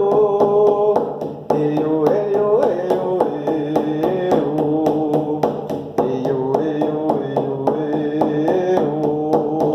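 Music: a song's melody in long held notes over a steady drum beat.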